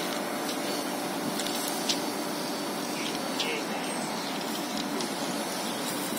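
Steady machinery noise with a hiss to it from the road-rail excavator running while it holds a steel sheet pile upright, with a few faint ticks and one small knock about two seconds in.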